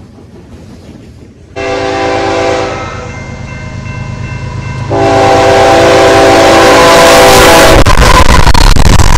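Multi-chime diesel locomotive horn of a BNSF-led freight train sounding for a grade crossing: a short blast about a second and a half in, then a longer blast. The lead locomotives then pass close by with a loud roar of engines and wheels. Before the horn there is a quieter rumble of freight cars rolling past.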